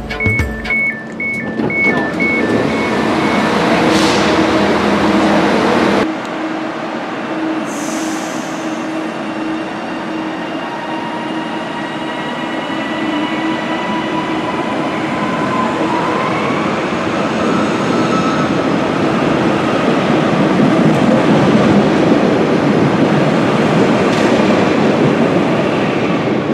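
Train door alert beeping in short repeated tones for the first few seconds. Then a TransPennine Express Class 397 electric multiple unit pulls out of the platform, wheels rumbling and traction motors whining faintly as it accelerates away under the trainshed roof, with a brief hiss about eight seconds in.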